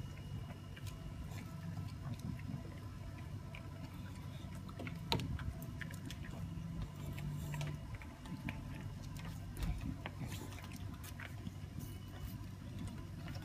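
English bulldog licking and chewing at a frozen homemade ice treat on the paving, with irregular small wet clicks and smacks, one sharper click about five seconds in.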